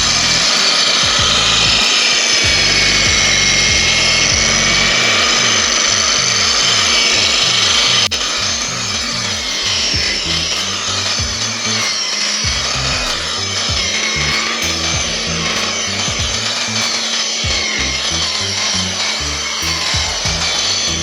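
Parkside PWBS 180 B2 wall and floor sander running and abrading a surface, a steady grinding rush with a motor whine that wavers in pitch; it gets a little quieter about eight seconds in.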